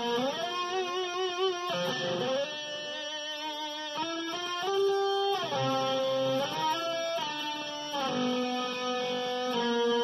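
Dean Custom Run Switchblade ML electric guitar played with an E-Bow held over the strings: long, endlessly sustained singing notes that glide from pitch to pitch, with a wavering vibrato on some notes in the first few seconds.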